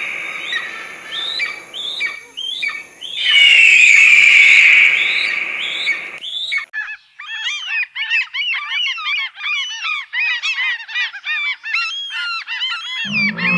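Birds calling: two loud, drawn-out falling screeches with short sharp calls between them. Then, from about six seconds in, a flock chattering with many quick overlapping calls.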